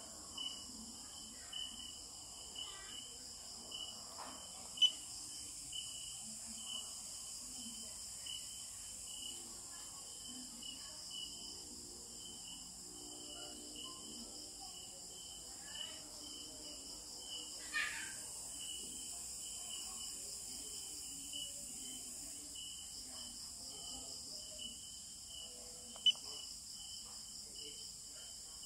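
Faint, steady chorus of crickets, an evenly pulsing chirp that keeps going throughout, with a couple of sharp taps, one about five seconds in and one near the end.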